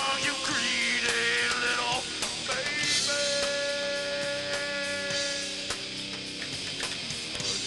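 Live rock band playing an instrumental passage: a lead instrument, most likely electric guitar, holds and bends long notes over drums and rhythm guitar.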